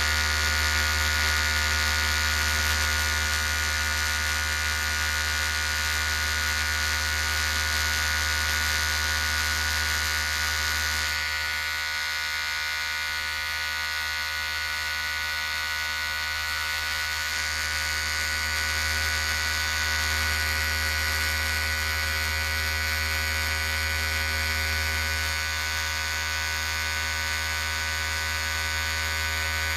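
Electric hair clipper running steadily, a continuous buzz with many steady tones, slightly quieter for a few seconds from about eleven seconds in.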